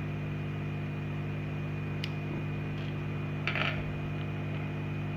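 Steady hum of a hot-air rework blower running. Over it, a small sharp click about two seconds in and a short rattle about a second and a half later, as the camera module is unclipped from a phone mainboard by hand.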